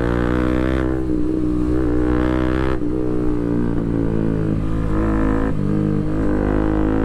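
Bajaj Pulsar RS200's single-cylinder engine running at steady revs through an open Akrapovic full titanium exhaust with the dB killer removed. The revs dip briefly about five and a half seconds in, then pick up again.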